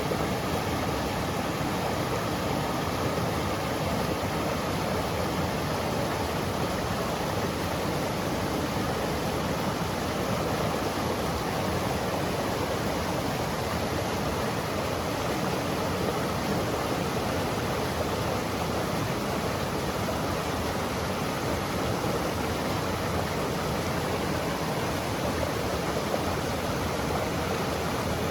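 Mountain stream flowing over rocks and pebbles: a steady, even rush of water.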